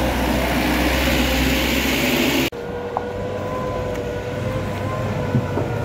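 Vehicle engines running in stalled traffic: a loud rumbling engine noise that cuts off abruptly about two and a half seconds in. It gives way to a quieter engine running with a steady whine.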